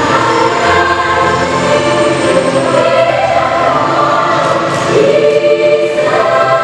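Mixed youth choir singing, voices on long held notes that change pitch every second or two.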